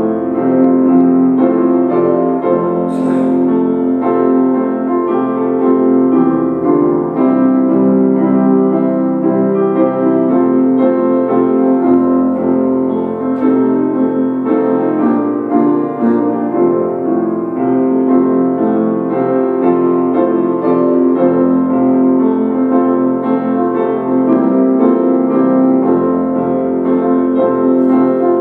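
Piano music playing held chords with a steady level throughout.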